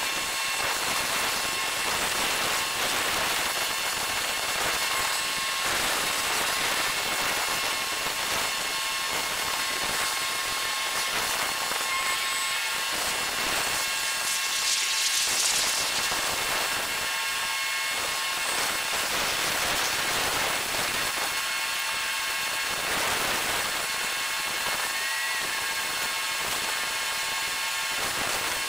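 Sped-up dockside ambience from time-lapse recording: a steady, high-pitched whirring hiss with no distinct events.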